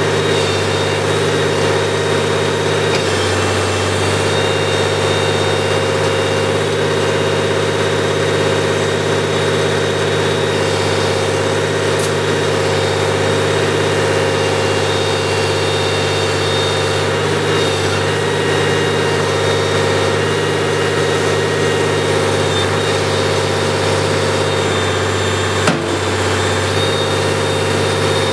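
Backhoe's diesel engine running at a steady speed, its note shifting slightly a few times, with one brief knock near the end.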